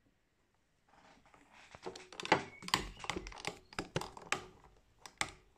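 Typing on a computer keyboard: a quick, irregular run of key clicks with a few heavier knocks, starting about a second in.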